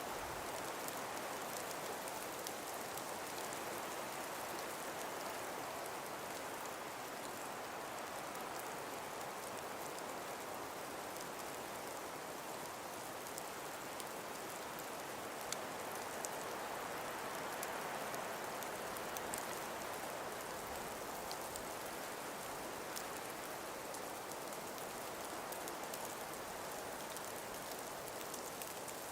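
Calm breeze blowing through forest trees: a steady, even hiss that swells and eases slowly, with faint scattered ticks.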